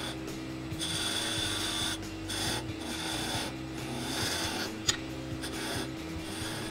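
Wood lathe running with a steady hum while a tool or abrasive rasps against the spinning wood in irregular bursts of a second or two, with one sharp click about five seconds in.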